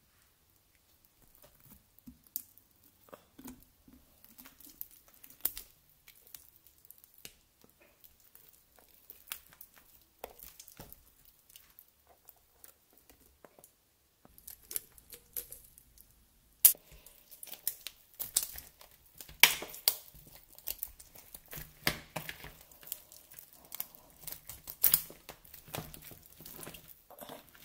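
Grey slime being stretched, torn and squashed by hand over a shell of small magnet balls: sticky crackling and tearing with sharp clicks. Sparse at first, it gets busier and louder a little past halfway, starting with a sharp snap.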